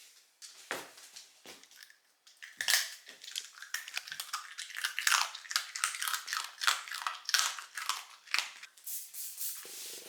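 A mame-shiba (small Shiba Inu) crunching a hard, crisp snack in its teeth: a few separate crunches at first, then a fast, dense run of crunches from about two seconds in.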